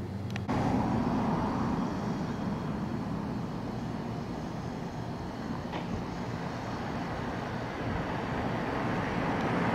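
Steady rumble of vehicle noise, like passing traffic, starting abruptly about half a second in, easing off in the middle and swelling again near the end.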